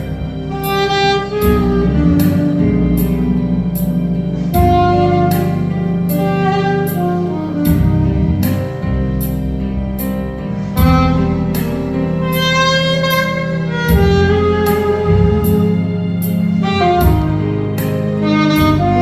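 Saxophone playing a melody of held notes over a backing accompaniment with a steady beat.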